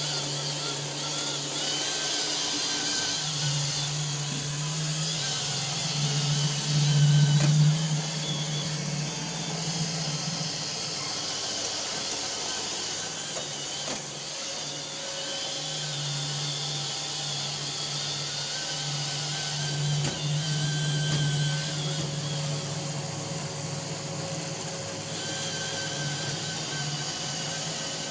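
iRobot Roomba 595 robot vacuum running: a steady motor hum and high whir from its vacuum and brushes, swelling and easing as it moves, loudest about seven seconds in.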